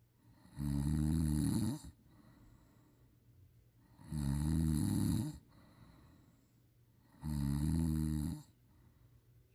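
A sleeping person snoring loudly: three long snores, each about a second, coming roughly every three and a half seconds.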